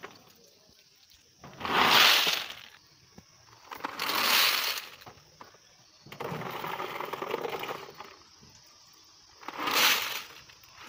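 In-shell walnuts scooped with a plastic basin and poured into a jute sack, clattering against each other in three loud rushes about a second long, near two, four and ten seconds in, with a softer, longer rattle between six and eight seconds.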